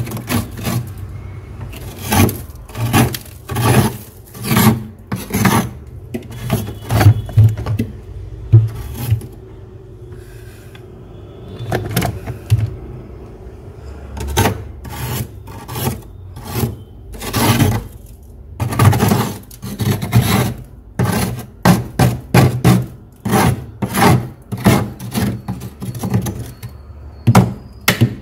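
A metal spoon scraping thick frost off a freezer's inner wall in repeated strokes, about one a second, with a sparser stretch near the middle and quicker, closer strokes toward the end.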